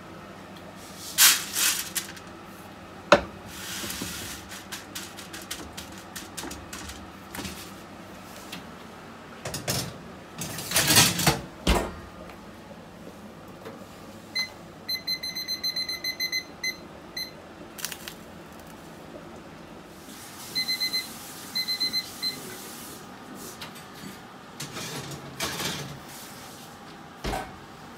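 Kitchen handling sounds: raw pumpkin seeds poured and rattling onto a metal baking tray, with clatters of the tray. An oven's electronic timer beeps in quick runs of short high beeps about halfway through and again a few seconds later, and a low knock comes near the end as the tray is handled.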